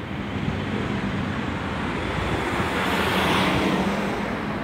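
A car driving past on the street, its tyre and engine noise swelling to a peak about three seconds in and then fading.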